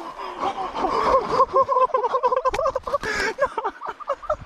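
A person's breathless, excited laughter: a quick string of short high-pitched bursts, several a second.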